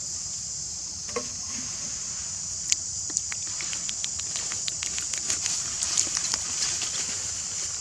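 A steady high-pitched insect drone, like a cicada chorus, runs throughout. From about three seconds in there is a run of small, sharp clicks and ticks.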